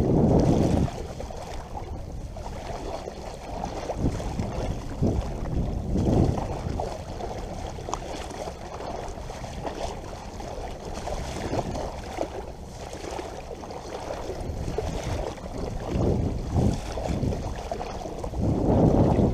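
Sea water sloshing and splashing around the legs of a person wading through the shallows, coming in uneven surges with the steps.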